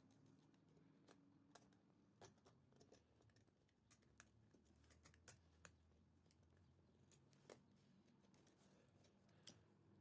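Faint, scattered small clicks and light scraping from a screwdriver working the terminal screws of a limit switch while wires are handled, with one sharper click near the end.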